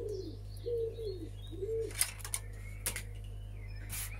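A pigeon cooing, a run of low soft hoots in the first two seconds, with a few sharp clicks of small plastic parts being handled after that and faint small-bird chirps.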